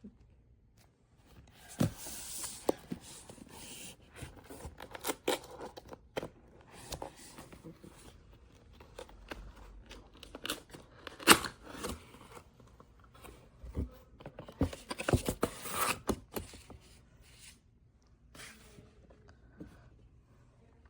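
A delivery package being opened by hand: packaging tearing, scraping and crinkling, with many sharp clicks and knocks and one loud knock about halfway through.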